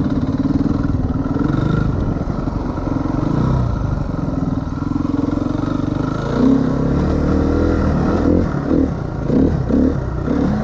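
Motocross dirt bike engine running on the move, with a steady note for the first half, then the revs rising and falling several times as the throttle is worked over the track's bumps and jump.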